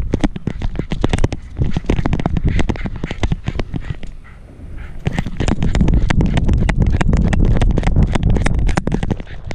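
Rapid clicking, rattling and rubbing from a GoPro Hero 5 jostling in a loose dog harness, over a low rumble of wind and handling noise on the camera's microphone. It eases off about four seconds in, then comes back louder and more continuous as the dog moves off across the grass.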